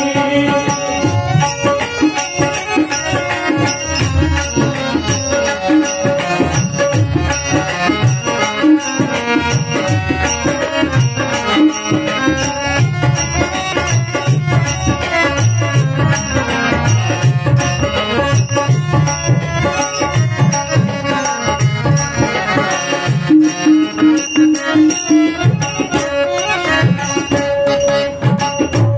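Instrumental interlude of devotional folk music: hand drums keep a steady beat under evenly repeating small-cymbal strokes, with held melodic notes sustained above them.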